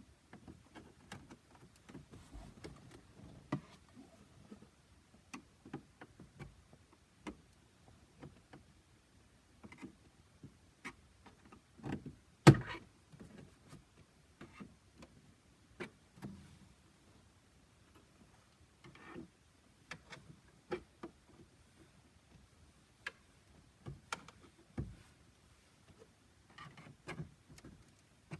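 Irregular clicks and light knocks of hands and tools working on a car's plastic centre-console trim, with one sharper knock about halfway through.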